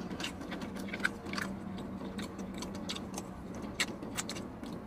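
Close-up eating sounds of someone chewing crispy fried chicken wings: irregular mouth clicks, smacks and crunches over a steady low hum.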